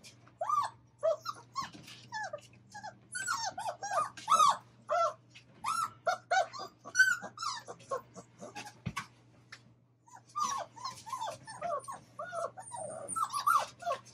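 Labrador retriever puppies whining and yipping, many short high calls overlapping one another, easing off about two-thirds through before picking up again.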